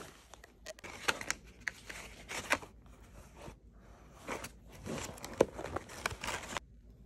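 Books, notebooks and papers being handled and slid into a fabric bag: irregular rustling and scraping with a few sharper knocks, stopping near the end.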